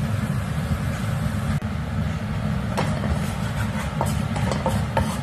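Minced garlic sizzling in hot oil in a frying pan over a low steady rumble. From about three seconds in, a spatula scrapes and taps against the pan several times as it stirs.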